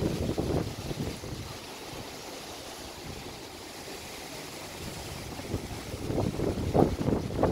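Typhoon wind gusting and buffeting the microphone: a steady rushing hiss with irregular low rumbling gusts, one right at the start and stronger, choppier ones from about five and a half seconds in.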